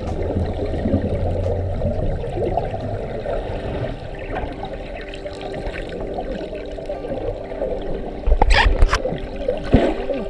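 Muffled underwater water noise, a steady low rush with faint gurgling. A brief louder burst sounds about eight and a half seconds in, with a smaller one near the end.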